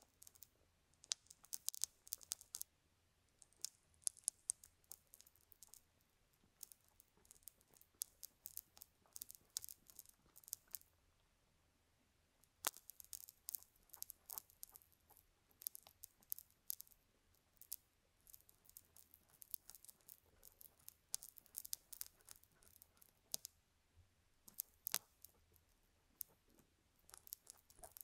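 Small pink bristle brush scraping and dabbing sticky white paste close on a silicone ear microphone, heard as crisp, crackly scratching in quick irregular clusters. There is a pause of about a second and a half near the middle.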